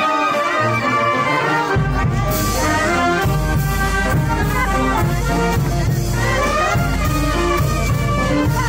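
Brass band (banda de viento) playing a lively festive tune, with brass carrying the melody; a heavy low bass part comes in about two seconds in.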